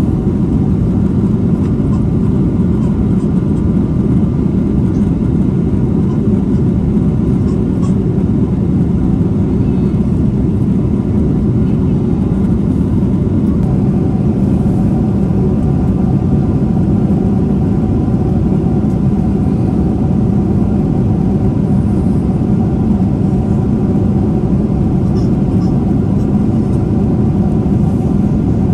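Steady low roar inside the cabin of a Boeing 777-300ER airliner: engine and airflow noise, with a faint steady hum above it.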